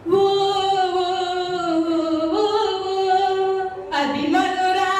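A woman singing a slow song in long held notes, stepping up in pitch about two seconds in and again near four seconds.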